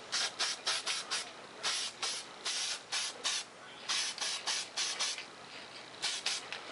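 Aerosol spray-paint can hissing in a rapid series of short bursts, a few held a little longer, laying down a light first coat of paint.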